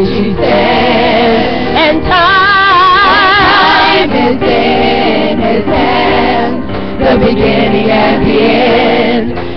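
Live church worship music: a contemporary worship song sung by several voices over instrumental accompaniment, with a long held note sung with vibrato about two seconds in.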